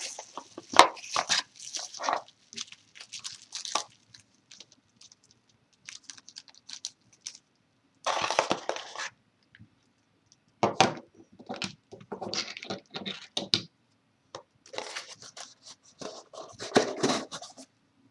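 Packaging being opened and handled during an unboxing: irregular bouts of crinkling, tearing and rustling with scattered clicks, stopping and starting.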